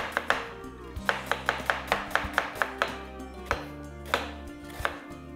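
Knife slicing cabbage for coleslaw. A quick run of about ten cuts, some six a second, starts about a second in, then a few slower single cuts follow, over background music.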